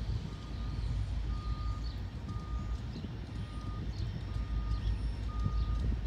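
Electronic grade-crossing warning bell sounding a steady beep about once a second, over a low rumble.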